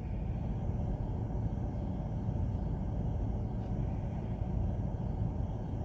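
Steady low rumbling background noise, with no speech and no distinct events.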